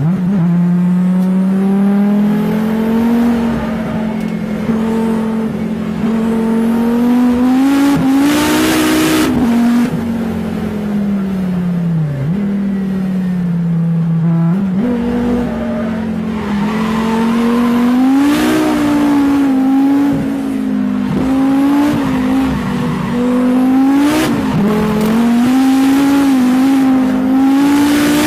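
Rally car engine heard from inside the cabin, revving up and down continuously as the car is driven hard, with the pitch dropping sharply on lifts and shifts about 12 s and 24 s in. Bursts of tyre noise come around 8 seconds in and again near 18 seconds, with a short one near 24 seconds.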